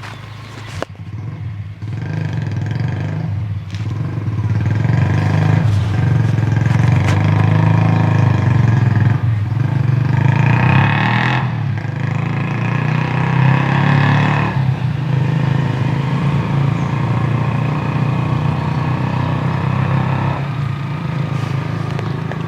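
A motor vehicle engine running steadily, getting louder with a higher-pitched whine about halfway through before easing off.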